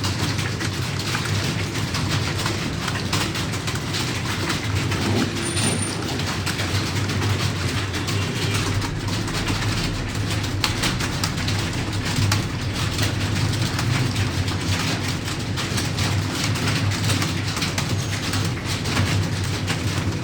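Many computer keyboards being typed on at once, a dense, continuous clatter of rapid key clicks over a low steady hum.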